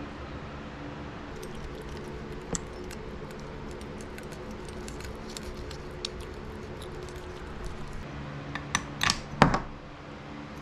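Light scattered clicks, then a short cluster of louder clinks and clatter from small hard objects near the end, over a steady low hum.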